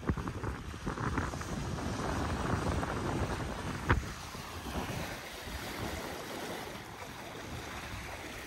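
Wind buffeting the microphone over water rushing past the hull of a Bayfield 29 sailboat under sail, with one sharp knock about four seconds in.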